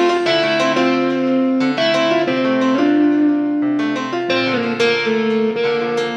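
Background instrumental music: a keyboard melody of held notes changing every second or less.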